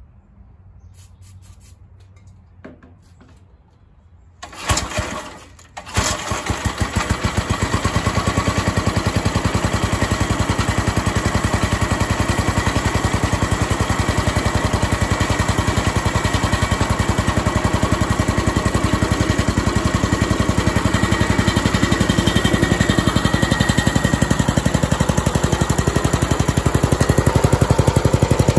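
Briggs & Stratton 5 hp single-cylinder horizontal-shaft engine starting on a shot of starting fluid. It fires about four and a half seconds in, sputters briefly, then catches and runs with a steady, fast putter.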